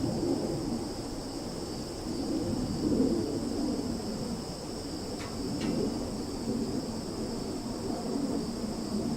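Summer forest ambience: a steady, high-pitched chorus of crickets and other insects over a low rumbling noise, with a couple of short chirps about five seconds in.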